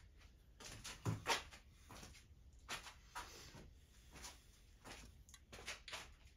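Faint, scattered clicks, taps and knocks of hands working on a miniature steam locomotive, with a louder knock about a second in.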